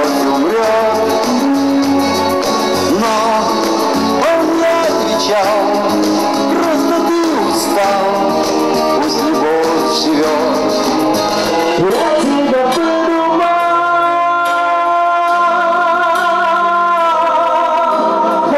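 A live band playing a pop song on drums, keyboard and electric guitar, with a man singing. About two-thirds of the way through, the beat drops away and long chords are held.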